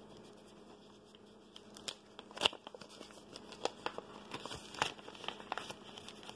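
Small packaging being unwrapped by hand: scattered crinkling and crackling of paper or plastic wrapping, starting about a second and a half in, with the sharpest crackle about halfway through.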